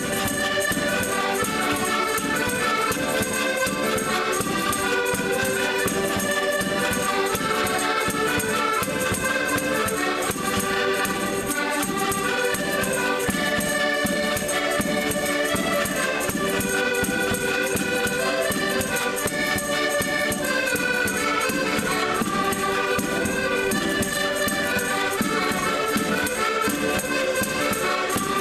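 An ensemble of diatonic button accordions (Portuguese concertinas) playing a tune together, with a bass drum keeping a steady beat throughout.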